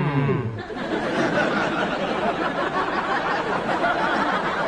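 Studio audience laughing: a steady wash of many voices.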